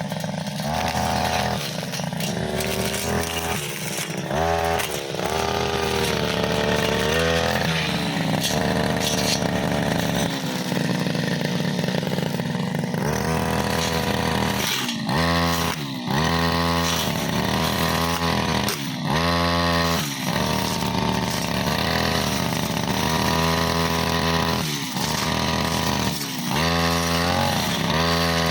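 Brushcutter's small two-stroke engine running with a blade fitted, its pitch rising and dropping again and again as the throttle is worked while cutting through long grass and saplings.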